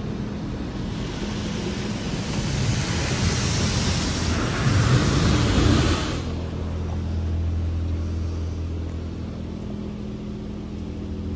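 Overhead high-pressure water jets of a Wash World Razor automatic car wash spraying onto the truck. The hissing spray builds over the first few seconds and stops about six seconds in, over a steady low hum of the wash machinery that carries on alone afterwards.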